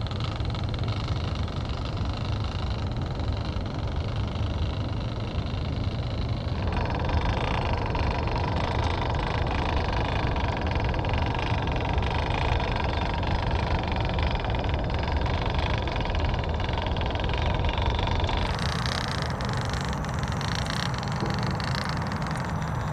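Small electric motor and geared transmission of an RC micro crawler running steadily as it crawls over rocks, with a thin steady whine and a low rumble underneath. The sound changes abruptly twice, about a third of the way in and near the end.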